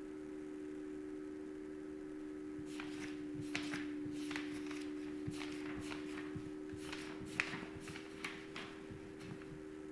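A steady low two-tone hum, with scattered soft clicks and taps, irregularly spaced, starting about three seconds in and running until near the end.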